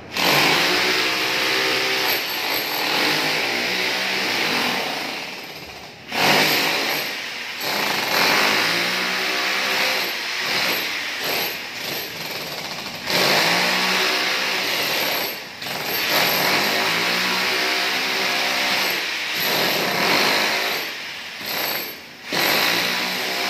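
Corded electric demolition hammer chiseling up floor tiles and the mortar bed beneath, hammering in long runs that stop briefly a few times. Its motor note rises and falls as the chisel is pressed into the floor.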